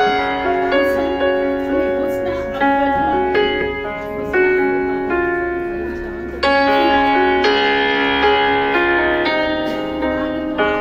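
Background piano music, a melody of single notes over held chords, growing louder about six seconds in.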